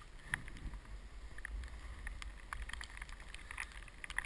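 Sliding over soft powder snow, with wind and handling rumble on a helmet-mounted camera's microphone, and scattered light scrapes and ticks of snow under the rider.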